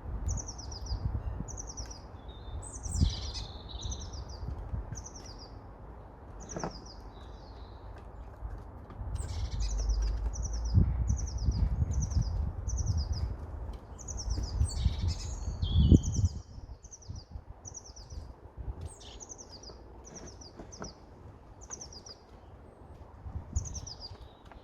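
Small songbird chirping over and over in short, high notes about one to two a second, with low rumbling and knocks close to the microphone that grow louder about halfway through, ending with a sharp knock.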